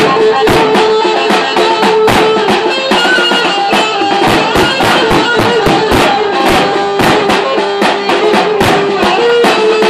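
Live folk dance music: a drum kit played fast with rapid, dense strokes under a held melody line from the band.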